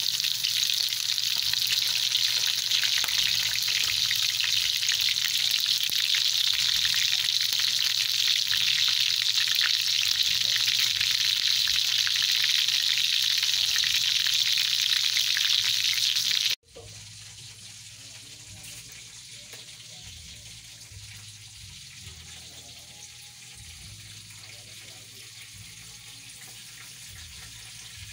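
Chicken leg quarters frying in hot oil in a wok, a loud steady sizzle. About sixteen seconds in it cuts off suddenly to a much quieter background.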